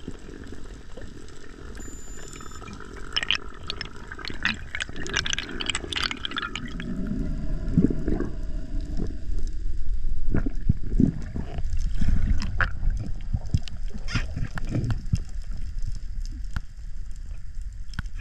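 Underwater sound from a spearfisher's camera: water movement and low rumbling, with clusters of sharp clicks and knocks, louder thuds in the second half.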